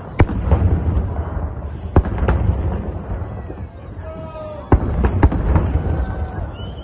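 Fireworks shells bursting overhead: sharp bangs in clusters, two near the start, two about two seconds in and a quick run of four or five near the end, over a continuous low rolling rumble of echoes.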